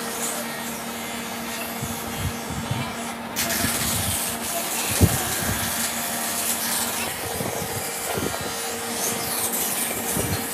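Wood lathe running with a steady hum while a bristle brush rubs finish onto the spinning turned piece, with scattered low knocks and one sharp knock about five seconds in.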